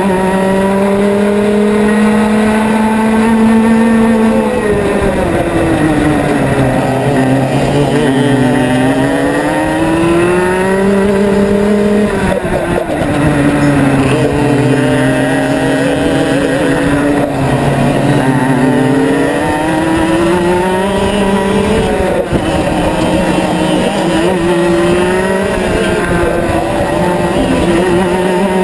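Rotax Max 125cc two-stroke kart engine heard from on board the kart, running hard at race pace. Its pitch climbs steadily along the straights and falls away three times as the kart slows for corners, then winds back up.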